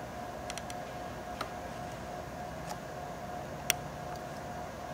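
A few light clicks of a small screwdriver and metal screw being set and turned into the laptop's card bracket, three quick ones about half a second in and the sharpest about three and a half seconds in. A faint steady hum runs underneath.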